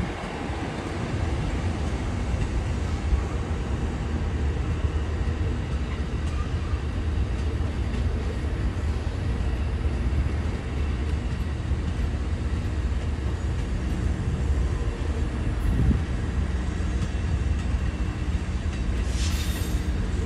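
Bilevel Amtrak Superliner passenger cars of a departing train rolling past, a steady low rumble of wheels on the rails. A short hiss comes near the end.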